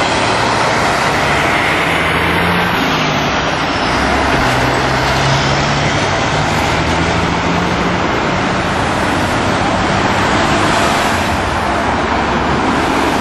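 Steady, loud road traffic noise from cars and heavier vehicles on a busy road, with a low engine hum standing out from about two to eight seconds in.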